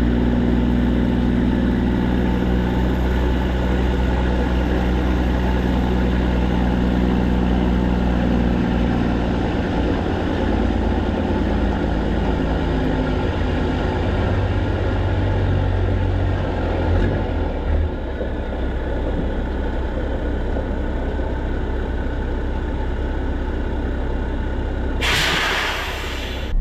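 Straight-piped PACCAR MX13 diesel in a semi truck running steadily; its note shifts lower roughly halfway through. A sudden loud hiss of air cuts in near the end and lasts about a second and a half.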